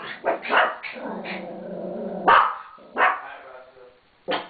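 A Pomeranian barking at a closed door in about seven sharp yaps, with a drawn-out growl between them, agitated after his owner has left.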